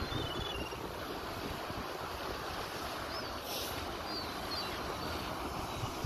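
Wind buffeting the microphone over the wash of small waves on the shore: a steady low rumble. A few faint, high, short bird chirps sound near the start and again about three to five seconds in.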